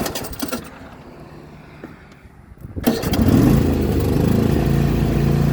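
Craftsman T260 lawn tractor engine starting: a few clicks near the start, then about three seconds in it cranks, catches and settles into a steady run.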